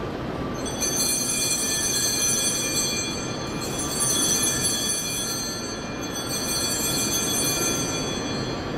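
Small altar bells ringing in three long peals, a shimmer of many high ringing tones, in a reverberant church. This is the ringing at the consecration of the Mass as the celebrant bows at the altar.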